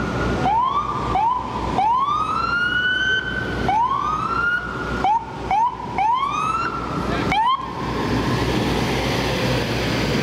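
Electronic emergency siren on an FDNY battalion chief's SUV pulling out on a run. It sounds a series of rising whoops, some long and some short and quick, and stops about seven and a half seconds in. Engine and street traffic noise carry on after it.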